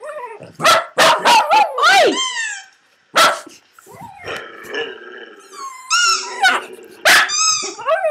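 West Highland Terrier barking and yipping in rapid bursts: a cluster of barks in the first two seconds, one more about three seconds in, then a quieter stretch before another run of barks and high yelps near the end.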